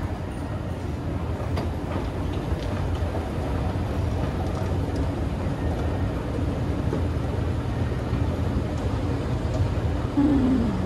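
Steady low rumble and hum of a moving escalator in a rail station, heard while riding it down, with a few faint clicks. Near the end a short falling voice-like sound stands out as the loudest moment.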